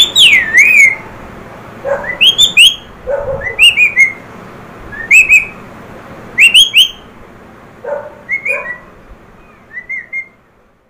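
Ringneck parakeet giving about seven bursts of shrill, whistle-like calls, each a quick rising-and-falling squawk or a short string of them, a second or two apart.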